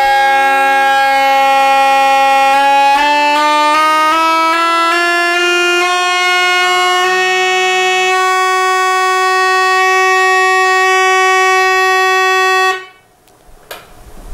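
Two organ pipes sounding together: a steady Prestant 4' flue pipe as reference and a reed pipe whose pitch slides upward over a few seconds as its tuning wire is moved, until it settles on the reference's G. Both notes stop together near the end.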